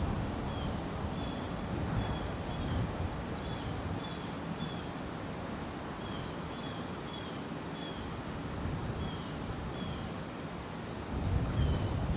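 Wind blowing across the microphone, easing in the middle and picking up again near the end. Over it, short high chirps repeat about twice a second.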